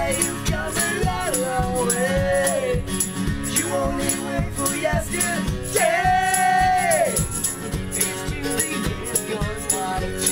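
Unplugged acoustic band performance: strummed acoustic guitar and group singing, with a long held sung note about six seconds in. The beat is knocked by hand on a wooden wall.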